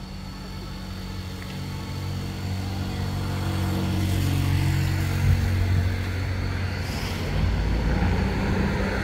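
A motor vehicle's engine running close by, growing louder from about two seconds in and loudest around the middle, like a vehicle passing.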